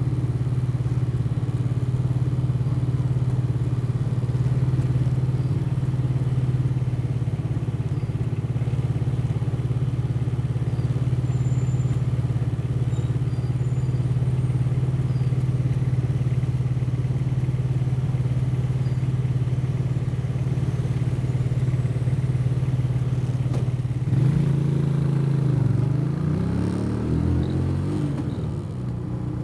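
Motorcycle engine running at a steady cruising speed with road and wind noise. Near the end the engine note dips and climbs again a couple of times as the throttle or gear changes.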